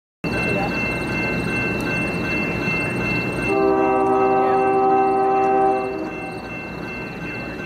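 Diesel locomotive air horn, a chord of several steady notes, sounds one blast of about two seconds a few seconds in. Under it is the low rumble of the approaching train.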